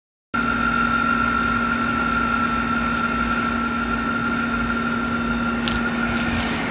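Air conditioner running with a steady low hum and a steady high-pitched whine over a rushing hiss, the weird noise it is making; a few faint ticks come near the end.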